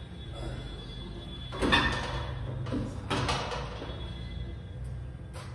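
A gym weight plate being set down, with a heavy knock about two seconds in and a couple of lighter knocks after it. Faint music plays underneath.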